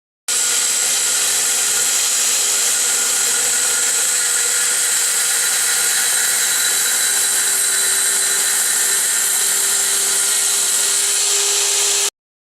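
Makita electric slide miter saw with a 165 mm, 64-tooth carbide-tipped blade running at full speed and cutting wood: a loud, steady, high-pitched whine mixed with cutting noise. It starts sharply and cuts off suddenly near the end.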